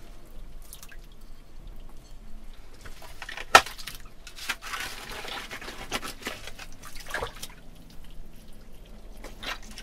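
Water dripping and splashing as hands and tools work in the wet muck of a waterlogged privy pit, with scattered small clicks and one sharp, loud click about three and a half seconds in.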